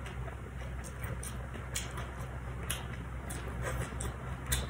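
Close-up chewing: scattered small crunchy clicks from a lettuce-wrapped fried spring roll being chewed, over a steady low hum.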